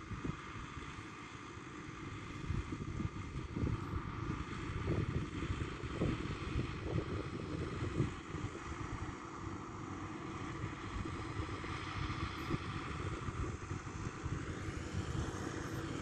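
Zetor tractor engine running steadily far off across the field while spreading manure, with wind buffeting the microphone.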